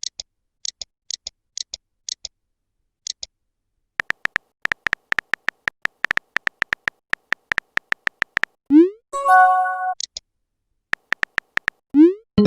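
Messaging-app sound effects: scattered tapping clicks, then a fast run of keyboard taps, each with a short beep, followed by a quick rising pop and a short chime, as when a chat message is sent or arrives. A second rising pop comes near the end.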